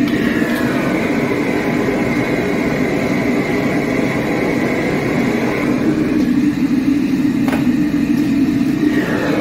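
High-pressure gas wok burner running at full flame with a steady low rush, overlaid by a hiss that fades about six seconds in and comes back near the end. A single metal clank about two-thirds of the way through, as the steel wok is set back on the burner ring.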